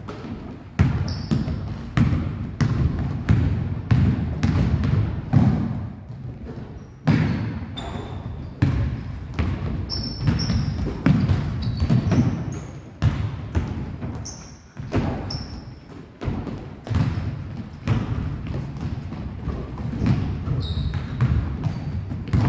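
Basketball dribbled and bounced on a hardwood gym floor, irregular thuds about one to two a second, with short squeaks of sneakers on the floor.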